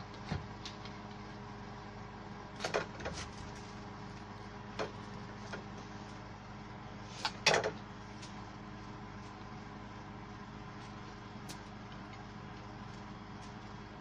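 A large bouquet of rose and gypsophila stems being handled and adjusted: a few short knocks and rustles, the loudest about seven and a half seconds in, over a steady low hum.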